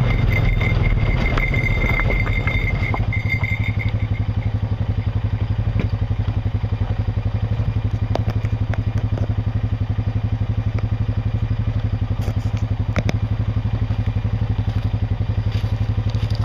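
Honda Rancher 420 ATV's single-cylinder four-stroke engine running with an even, rapid putter, with a thin high whine that fades out in the first few seconds. A few sharp clicks and knocks come later on.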